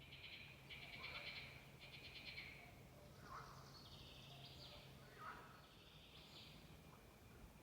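Faint forest chorus of birds and frogs calling: three quick buzzy trills, then higher chirping notes, with short lower calls dropping in pitch now and then.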